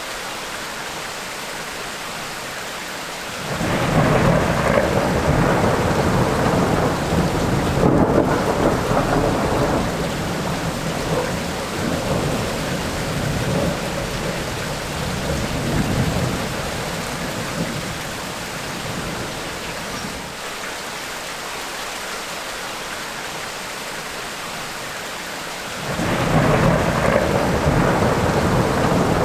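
Steady tropical rain falling, with thunder rumbling over it. One long peal starts suddenly about three seconds in and slowly dies away over some fifteen seconds, and another starts suddenly near the end.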